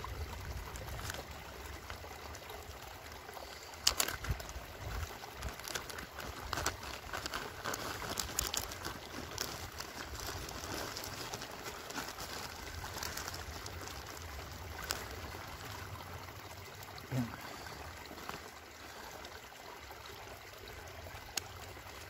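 A stream running steadily, with the crinkling of a plastic zip bag and clicks from handling a plastic water bottle, mostly between about four and thirteen seconds in, the sharpest click about four seconds in.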